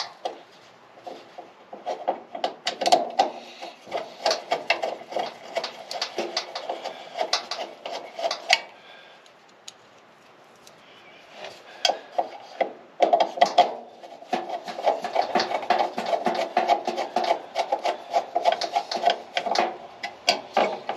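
Hand file rasping back and forth on metal to take off a burr, in rapid strokes. It goes in two long bouts with a short pause about halfway through.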